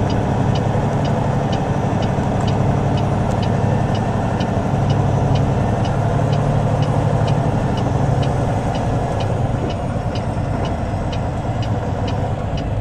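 Semi truck's diesel engine idling steadily, with a faint regular ticking about twice a second over it.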